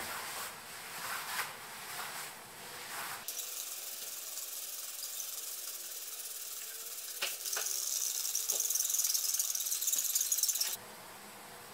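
Trigger spray bottle misting mineral spirits onto a cotton canvas tarp: a few short spraying hisses, then a steady high hiss that grows louder about eight seconds in, with a few clicks, and cuts off suddenly near the end.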